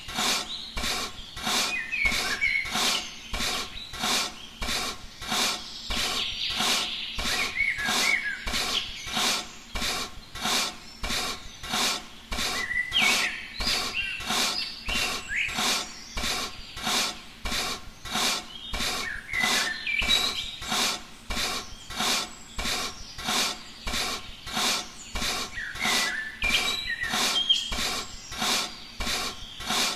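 Repeated scraping or rasping strokes, about two a second, steady and rhythmic, with small birds chirping over them.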